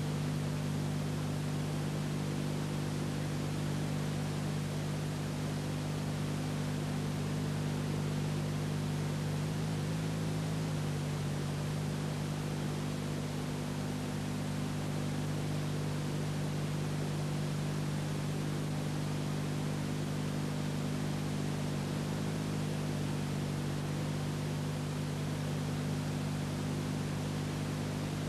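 Steady hiss with a low electrical hum made of several steady low tones and no other sound: the background noise of an old film transferred to videotape.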